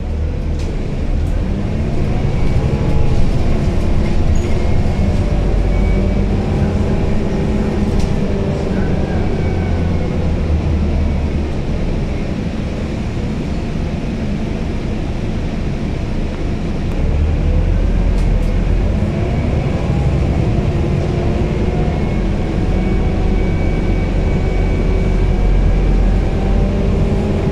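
Scania Citywide CNG city bus heard from inside the passenger cabin while under way. Its 9.3-litre five-cylinder Scania OC09 gas engine and ZF automatic gearbox run under a heavy low rumble. The drivetrain whine rises and falls in pitch several times as the bus drives.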